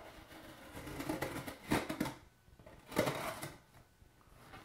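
A knife slitting the packing tape along the seam of a cardboard box, in a few scratchy strokes, the loudest about halfway through and again about three seconds in.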